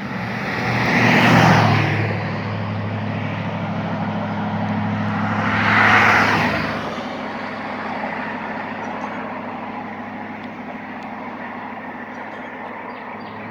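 Two vehicles pass by one after the other, their tyre and engine noise swelling and fading about a second in and again about six seconds in. A steady low engine hum runs underneath.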